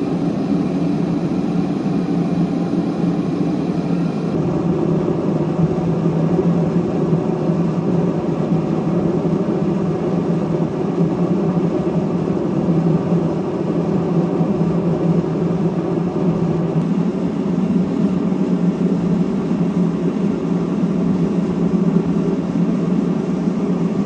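Dyna-Glo forced-air propane heater running, its fan and burner giving a loud, steady whir that holds unchanged throughout.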